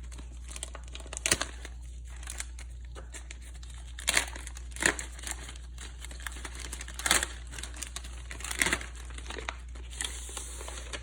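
Paper and plastic crinkling and rustling in irregular handfuls as sticker sheets from a toy track set are handled and unpacked, over a steady low hum.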